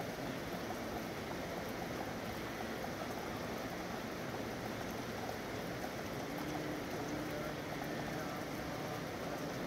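Steady rain falling in a city, a continuous even hiss of rain with no breaks.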